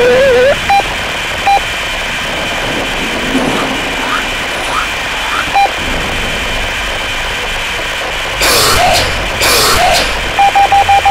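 Electronic noise soundtrack: a steady hiss with faint steady tones, a few short single beeps, two loud bursts of static about eight and nine and a half seconds in, and a quick run of five beeps at the very end.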